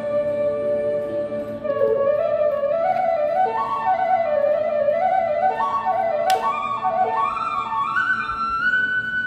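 Background music: a slow solo flute melody. It holds one long note, then moves up and down, and near the end settles on a higher held note.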